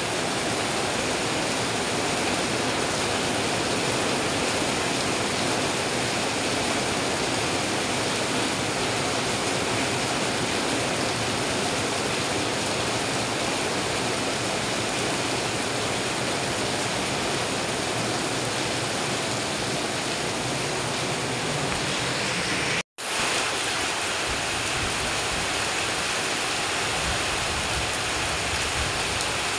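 Heavy rain pouring down, a dense, even hiss of falling water with no change in strength. It cuts out for a split second about three-quarters of the way through, then carries on as before.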